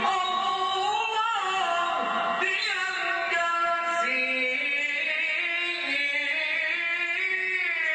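A man's solo voice singing an unaccompanied religious chant through a microphone, holding long notes that slide and turn between pitches.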